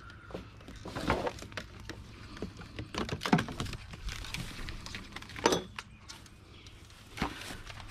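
Rustling and clattering of household junk as a canister vacuum cleaner is tugged free of a tangled rubbish pile, its hose and cord dragging through the other items, with a few louder knocks.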